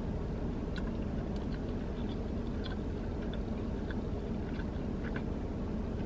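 A person chewing a mouthful of chili cheese dog, making small soft mouth clicks scattered through the chewing, over a steady low hum.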